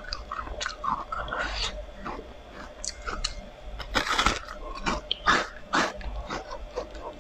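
Crisp crunching bites and chewing of a coated whole cucumber, with a series of short crunches and the loudest bite about four seconds in.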